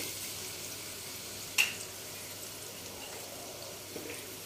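Sliced onion, spring onion and green chillies sizzling in hot oil in a steel pot: a steady frying hiss, with a single sharp click about a second and a half in.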